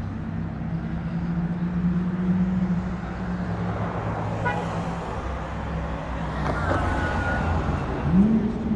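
Car engine running with a steady drone amid traffic noise at a car meet, its pitch rising sharply near the end as the engine revs up.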